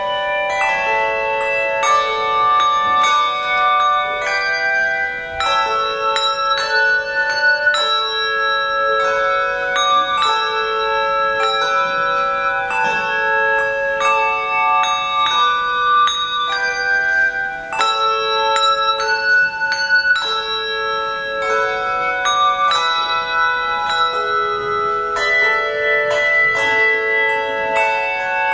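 Handbell choir ringing a slow hymn tune: chords of several bells struck together about once a second, each left ringing into the next.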